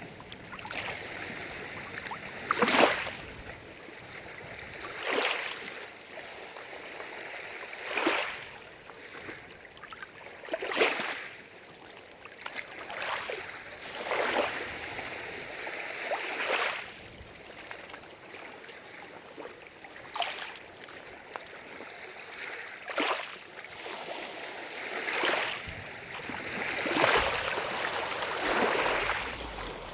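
Small lake waves lapping and splashing against the shore every two to three seconds, over a steady wash of water.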